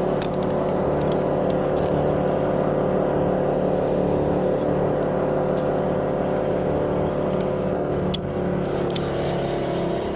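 A crane's engine running steadily at a constant speed, with a couple of light clicks near the end.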